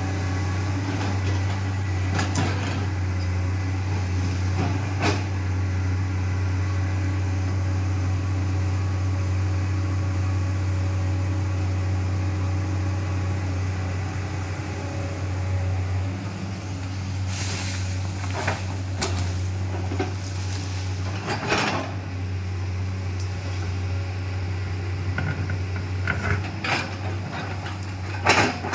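Komatsu PC210LC hydraulic excavator's diesel engine running steadily at working revs, with a low hum, as the machine swings and digs. Scattered knocks and clanks from the bucket working soil and rock break through it, the loudest near the end.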